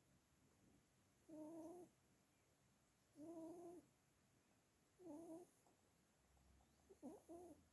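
Pet rabbit snoring in its sleep: four short pitched snores, each about half a second long, coming about every two seconds, the last broken into two quick ones.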